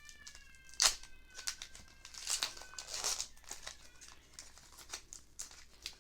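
Foil booster pack wrapper crinkling as it is handled and torn open, in irregular crackles with a sharp loud one about a second in.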